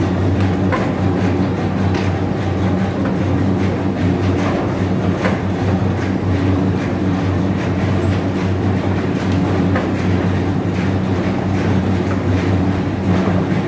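Clay tile factory machinery, the tile press and conveyor belt, running with a steady low hum and rattle. Irregular clacks come from clay tiles being knocked together as they are taken off the belt and stacked.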